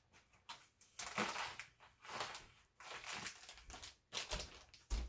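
Plastic zip-top freezer bag of chopped red bell pepper being handled, crinkling in several rustling bursts about a second apart, with a short low thump near the end.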